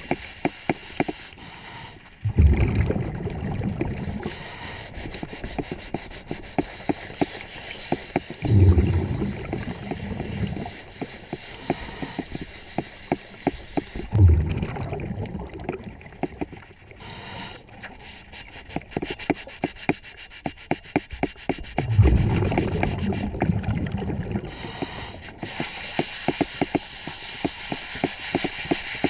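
Underwater sound of a diver's breathing gear: exhaled bubbles rumble in bursts about every six seconds, with a hiss of air and a steady crackle of fine clicks between them.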